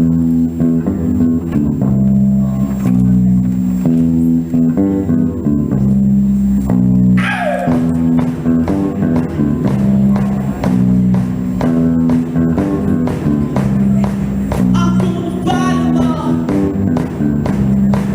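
Live rock band playing a song intro led by an electric bass guitar riff of repeating low notes, with guitar and drums. About seven seconds in, a pitch slides downward.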